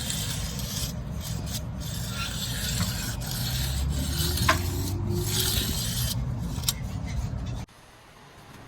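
A hand tool scraping and rubbing over mortar in uneven rasping strokes, cutting off suddenly near the end.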